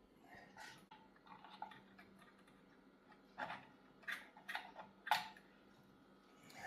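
A series of short, irregular clicks and rustles of small parts being handled inside a cuckoo clock's case.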